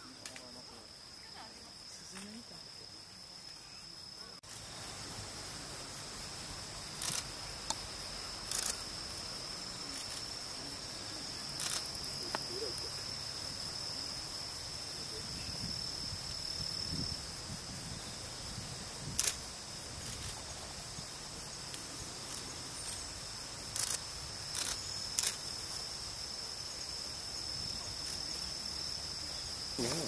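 A steady, high-pitched insect trill in the background, with several sharp clicks scattered through it.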